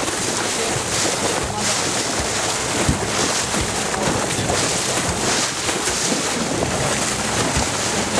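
Wind blowing across the microphone over the steady rush of sea water around a sportfishing boat.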